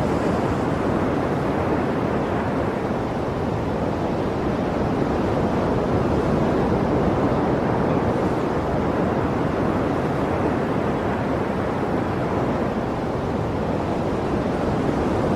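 Sea waves washing steadily: a continuous, even rush with no single break standing out.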